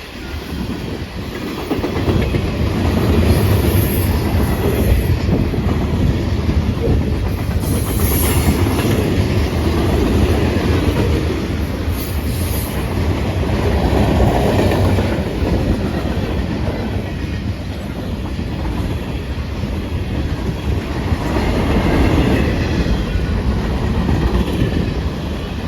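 CN freight train rolling past, the cars' wheels clattering over the rail joints in a steady, loud rumble, with brief high wheel squeals a few times.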